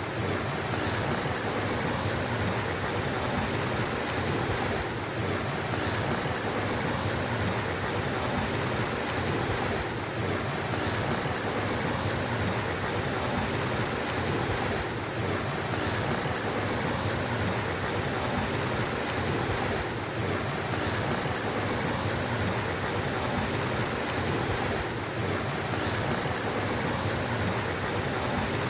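Flowing water of a mountain stream rushing steadily and without a break.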